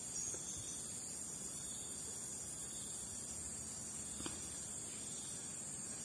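Steady high-pitched chorus of insects, with one faint tap about four seconds in.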